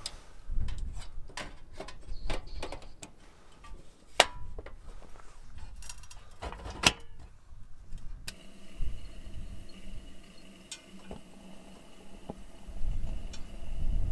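Camp gear being handled: a quick run of clicks, knocks and light clatter, then an abrupt change about eight seconds in to a faint steady hum with a few single ticks.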